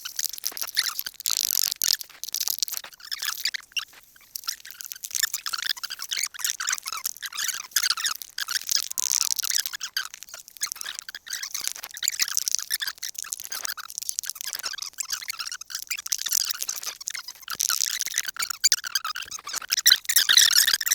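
Dense, irregular crackling and sizzling of food cooking over a wood fire, swelling and fading in loudness.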